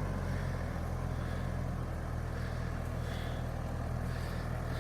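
Engine of a farm vehicle running steadily at an even speed, a low, unchanging drone.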